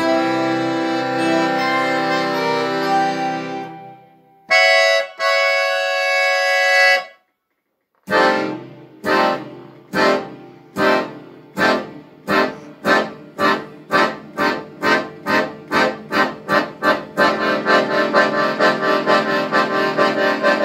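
Piano accordion playing. Sustained chords fade out, a bright high chord is held for a couple of seconds, and after a short silence come repeated short chords that start slow and speed up steadily until they run together. This is the accordion imitating a steam train pulling away.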